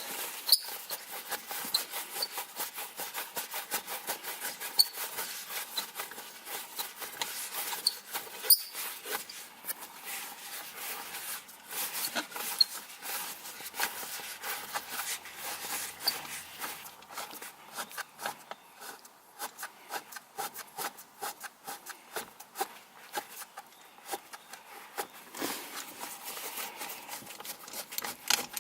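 A 5/8 wrench working loose the nut under the shift knob of the Hellcat's stock six-speed manual shifter: a long run of small, irregular clicks and rubbing.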